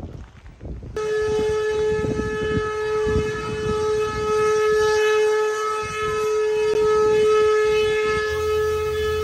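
A long, steady blast from a horse-drawn carriage's hooter, held on one pitch. It starts suddenly about a second in and keeps sounding, warning traffic to clear the way for the horses.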